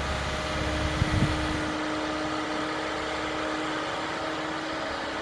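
Heavy earthmoving machinery's engine running steadily, with a brief knock about a second in, after which the deep low rumble drops away.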